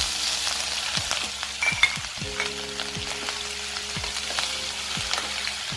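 Grated ginger sizzling in hot tempering oil in a hammered steel kadhai, with a steady hiss, while a steel spoon stirs and scrapes the pan with small clicks and one louder clink about two seconds in.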